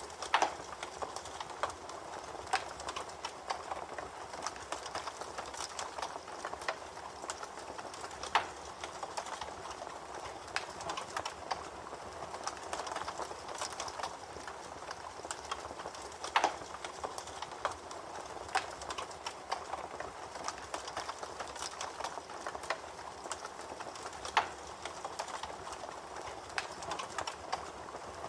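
Campfire crackling: a steady soft hiss full of small irregular pops, with a few louder snaps every several seconds.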